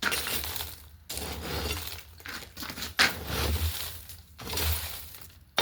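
Coked coal being raked into the forge fire: a series of crunching, scraping strokes with sudden starts, about one to two seconds apart.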